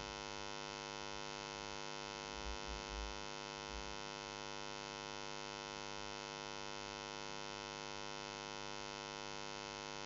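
Steady electrical mains hum, a stack of even tones with no change, with a few faint low bumps about two to four seconds in.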